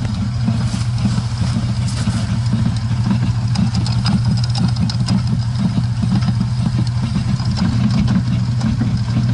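IZh 21251 Kombi's four-cylinder engine idling in first gear, spinning the jacked-up rear wheel through the propshaft and rear axle, with faint clicking and knocking from the driveline. The owner suspects a worn propshaft U-joint or pinion shaft, and an out-of-round rear tyre adds to the rattle.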